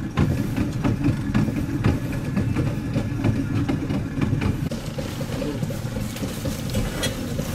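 A small boat's engine running steadily, heard from on board.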